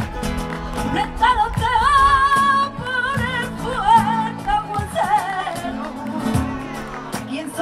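Live flamenco music: a woman singing wavering, ornamented lines, coming in about a second in, over acoustic guitar and cajón.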